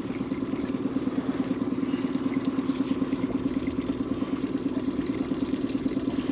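Baitcasting reel being cranked steadily under the load of a hooked walleye, its gears giving a continuous whir with a fast, even flutter.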